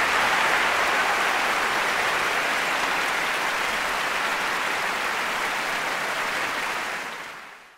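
Theatre audience applauding, a steady even clapping that fades out near the end.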